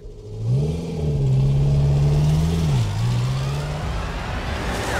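A vehicle engine running and revving: its pitch climbs about half a second in, holds steady, dips briefly near three seconds and climbs again, with a rising rush of noise toward the end.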